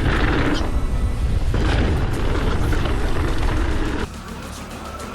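Wind buffeting the camera microphone, with tyre rumble, on a fast mountain-bike run, over background music. About four seconds in it cuts off suddenly, leaving quieter music.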